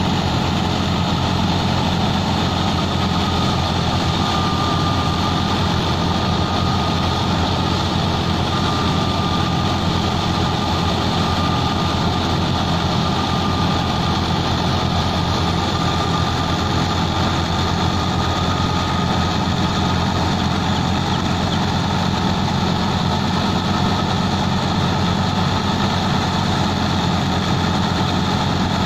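Fiat 480 tractor's diesel engine running at a steady speed under load, driving a wheat thresher through its PTO shaft, with the thresher drum's drone mixed in. A faint thin high whine comes and goes through the middle.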